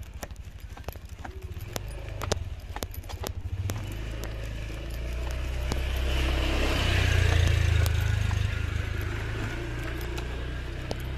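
Footsteps clicking along a concrete alley path while a motorcycle comes up from behind and passes. Its engine swells to its loudest a little past the middle, then eases off as it rides on ahead.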